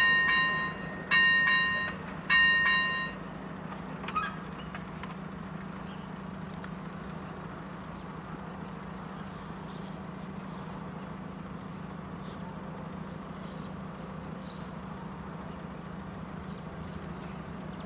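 Level-crossing warning bell ringing three times, about a second apart, then stopping about three seconds in as the barrier arms come down, with a light knock just after. A steady low hum and a few faint high chirps follow.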